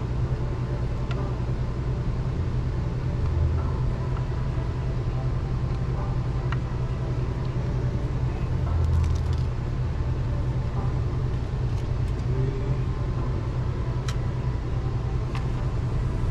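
A steady low hum in a workshop, with a few sharp light clicks of small screws and a hand screwdriver working a car radio unit's metal chassis.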